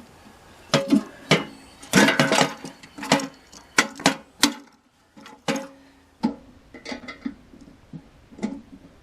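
Irregular metallic clanks and knocks, each ringing briefly, from the bullet-damaged steel safe and its bent door plate being handled and worked on.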